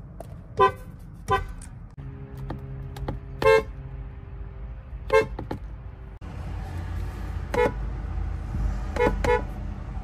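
Horns of several different Hyundai Santa Fe model generations, each given short taps: about seven brief honks, singly and in quick pairs, over a steady low rumble.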